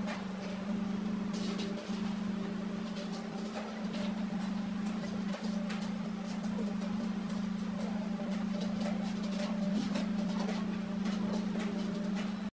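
A steady low hum runs throughout, with faint scattered clicks and light splashing as a steel connecting rod is handled and washed in a metal basin of liquid.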